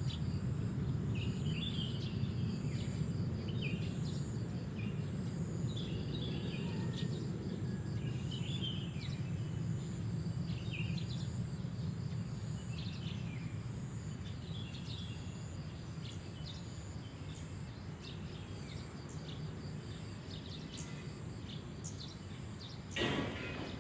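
Morning chorus of small birds chirping and twittering in short, repeated phrases over a steady high cricket trill and a low background rumble. A single short thump sounds near the end.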